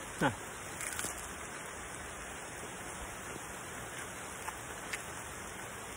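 Steady hiss of rain, with a few faint clicks near the start.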